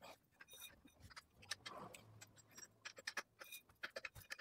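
Faint, scattered light metallic clicks and ticks from hands working on a bicycle's rear wheel and chain, irregular rather than a steady rhythm.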